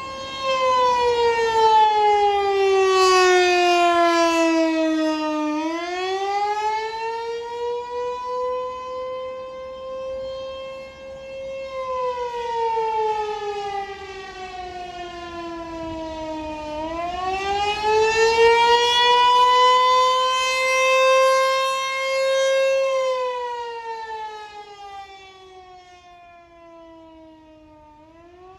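ASC T128 outdoor tornado warning siren sounding a wail. Its pitch slides down over about five seconds, climbs back and holds, then slides down again, about every eleven seconds. It is very loud, and the loudness swells and fades as it goes.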